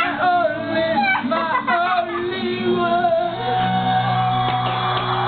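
A man singing a song, with music behind his voice.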